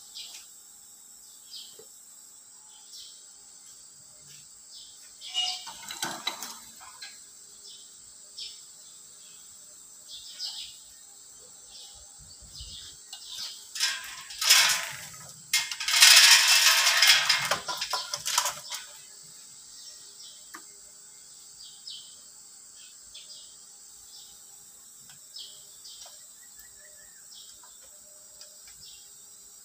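Scattered metallic clinks and clanks of tools and chain being handled around a stripped engine block. About halfway through comes a loud metallic rattle lasting a few seconds.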